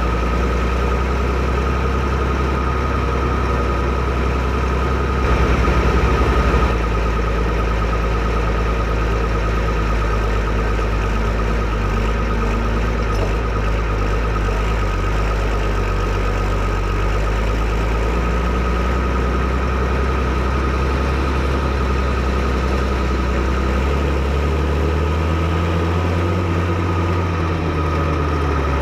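Fiatagri 115/90 tractor's six-cylinder 5.9-litre FIAT diesel engine idling steadily, briefly louder about five seconds in, its low note shifting slightly later on.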